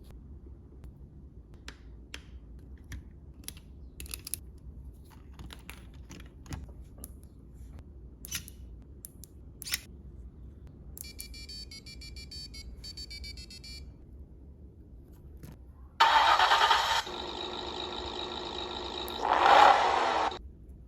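Scattered clicks, then a short run of electronic beeps, then a recorded car engine-start sound played back from the model Jeep's electronics. The engine sound starts loud, settles into a steady run, swells briefly near the end and cuts off suddenly.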